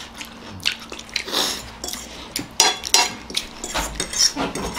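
Forks clicking and scraping against plates in quick irregular taps as noodles are eaten, with slurping of noodles.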